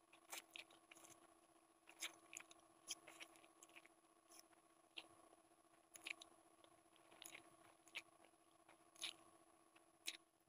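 Close-up mouth sounds of someone eating Maggi instant noodles: short wet chewing smacks and clicks at irregular intervals, over a steady faint hum.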